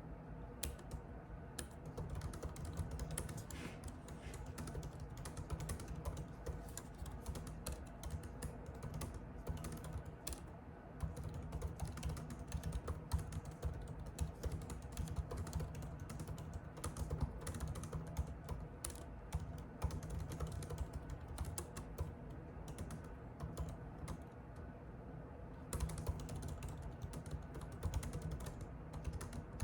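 Typing on a computer keyboard: a fast, irregular run of key clicks that thins out briefly about three-quarters of the way through, over a steady low hum.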